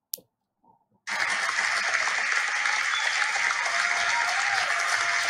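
A short click, then applause that starts abruptly about a second in and continues steadily.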